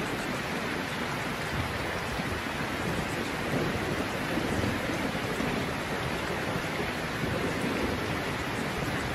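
Steady rain: an even, unbroken hiss of rainfall with a low rumble underneath.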